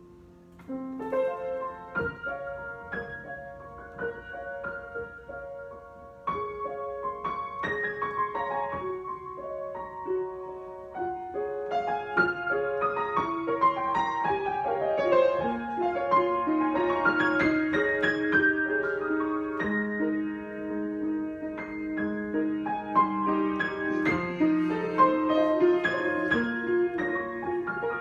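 Solo piano being played improvisationally, single notes and chords struck and left to ring. It starts sparse and quiet, grows louder about six seconds in, and fills out into denser chords in the second half.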